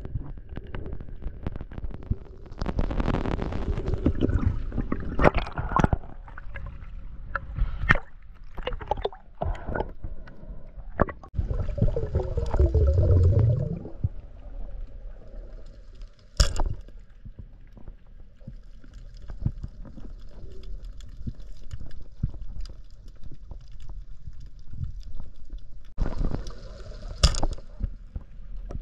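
Underwater sound heard through a camera's waterproof housing: irregular sharp clicks and knocks, with louder rushes of bubbling water about three seconds in, around twelve seconds in and near the end.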